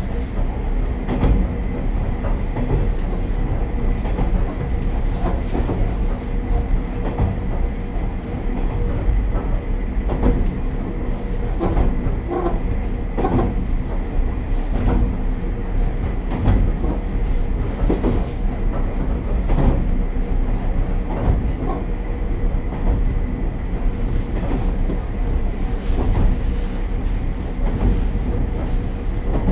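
KiHa 37 diesel railcar's DMF14HZ diesel engine droning steadily while the car runs along the line, heard from inside the front of the car. Scattered clicks from the wheels run over it.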